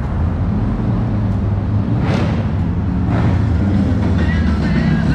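Road traffic: a steady vehicle engine rumble with the tyre hiss of cars driving past about two and three seconds in.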